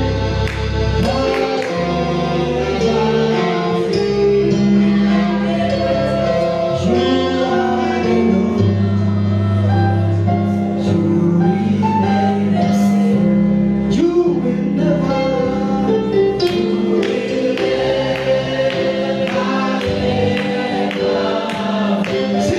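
Gospel music with a choir singing over a steady bass and rhythmic percussion.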